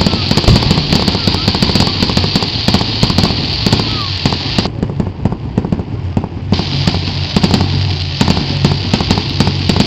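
Fireworks going off in a dense, rapid run of pops, bangs and crackles over a steady hiss of burning sparks. The hiss thins for a couple of seconds midway while the popping carries on.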